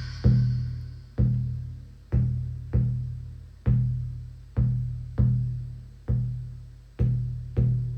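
Shamanic drum beaten in a slow, steady pulse, about ten strokes. Each stroke is a deep boom that fades away before the next one.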